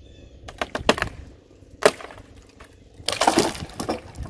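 A large chainsaw-cut tree limb breaking free and falling: several sharp wood cracks, a loud splintering snap, then a crash of branches and wood hitting the ground about three seconds in.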